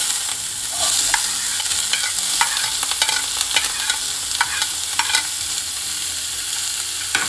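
Diced red onion sizzling as it drops into hot ghee in a stainless steel frying pan: a steady hiss, with a metal spoon scraping and tapping against a plate every second or so as the onion is pushed off.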